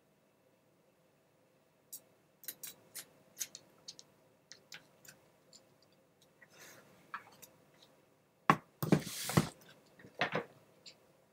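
Laptop parts and small screws being handled during reassembly: a string of light clicks and ticks, then a louder cluster of knocks and a short scrape about three-quarters of the way through.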